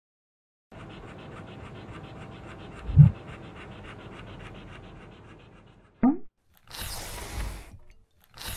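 A dog's rapid, rhythmic breathing in quick sniffs or pants, with a loud low thump about three seconds in. After a short falling swoop, plastic cups slide twice across a wooden floor as they are shuffled.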